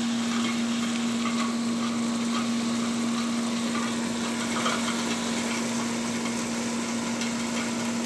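Late-1960s Sears Coldspot 18,600 BTU window air conditioner running, heard from the condenser side: a steady hum over the whoosh of its fan, set on low.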